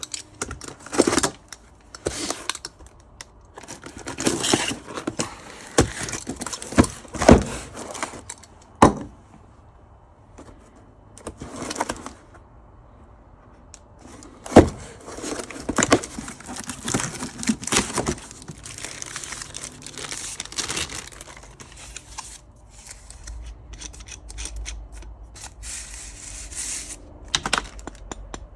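Unboxing a set of clamps: packaging torn and crinkled, with many sharp knocks and clinks as the parts are handled, the loudest knock about halfway through.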